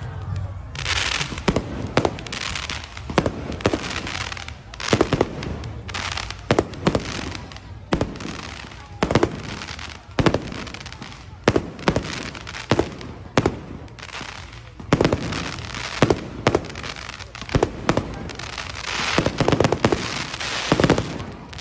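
Aerial fireworks going off in a rapid, irregular series of sharp bangs, several a second at times, with bursts of crackling in between.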